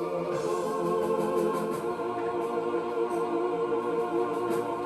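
Background church music of sustained, held chords with no clear beat, underneath a pause in the preaching.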